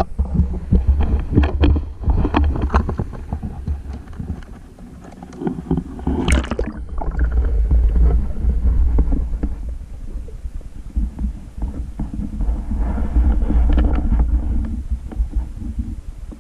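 Water buffeting a GoPro in its waterproof housing underwater: a heavy, uneven low rumble that swells and fades, with scattered knocks and clicks on the case and a brief rush of hiss about six seconds in.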